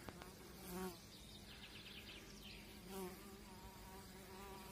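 Honeybees buzzing faintly at the entrance of a swarm trap that a swarm has moved into, the colony flying actively. Twice, about a second in and again about three seconds in, a bee flies close by with a louder buzz that rises and falls in pitch.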